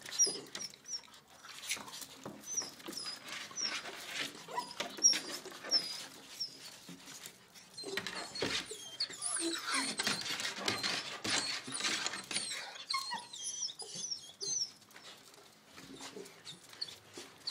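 Bull terrier puppies at play, giving many short, very high-pitched squeaks and whimpers that rise and fall, thickest in the middle stretch, with scuffling and quick clicks throughout.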